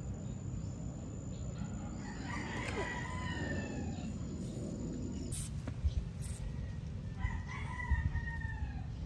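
A rooster crowing twice, each crow drawn out for about two seconds and trailing down in pitch at the end.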